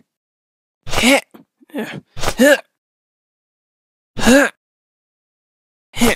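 A man's short wordless vocal cries, about five of them, each a brief rise-and-fall in pitch, spaced a second or two apart with dead silence between.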